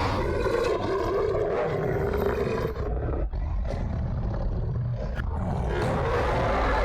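Film werewolf creature growling and snarling, deep and rough, easing off about halfway and swelling again near the end.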